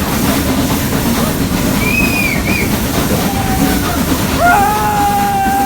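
Carriage of a hill-railway toy train running along the track, a steady loud rumble. A short high tone comes about two seconds in, and a long, steady higher tone is held from about four and a half seconds in.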